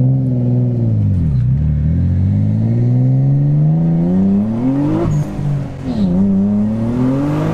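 Greddy twin-turbocharged Infiniti G35's 3.5-litre V6 heard from inside the cabin, accelerating: the revs climb steadily through a gear, drop sharply at an upshift about five seconds in, then climb again.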